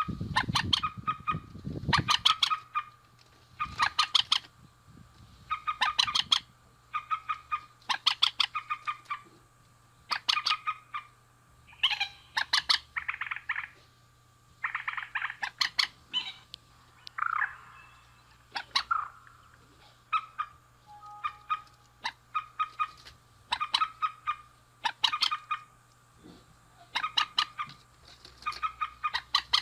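Mandar (a rail-family waterbird), male and female, calling: bursts of rapid, harsh clucking notes repeated about every two seconds, with a few longer squawking calls about halfway through.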